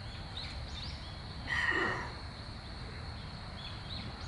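Outdoor forest ambience: a steady high insect drone with a few short, faint bird chirps over a low background rumble. A brief louder sound stands out about a second and a half in.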